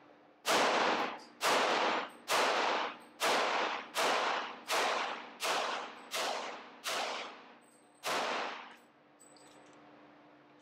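Ten pistol shots from an FN 510 10mm pistol firing .40 S&W rounds, about one a second, with a slightly longer pause before the last shot. Each report echoes off the walls of an indoor range. The gun runs the undersized cartridge without a hiccup until the magazine is empty.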